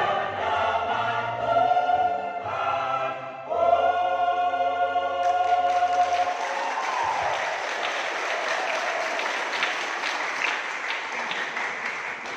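Mixed church choir singing the closing phrases of a piece and ending on a long held chord about six seconds in. Applause breaks out just before the chord ends and carries on, fading near the end.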